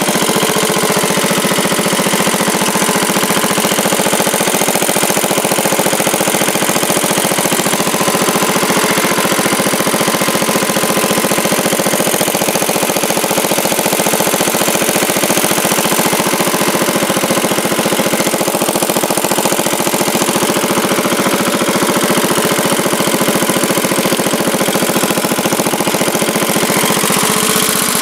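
1967 Sears Suburban 10 garden tractor's engine running steadily at working speed while the tractor pushes snow with its front plow blade.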